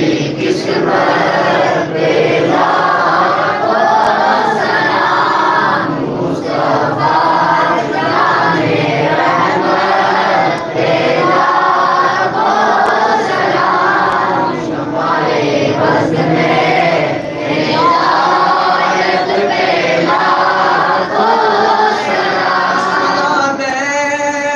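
A group of men chanting a devotional hymn together in unison, many voices in one melody rising and falling in long phrases. Near the end one steady held tone stands out above the group.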